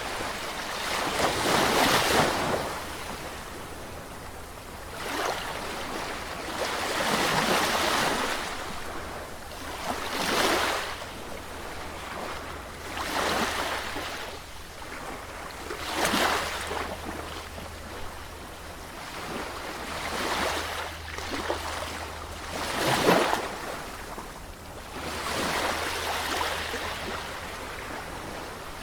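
Sea waves breaking and washing on the shore, the surf swelling and falling back every few seconds, with sharper crashes about 16 and 23 seconds in.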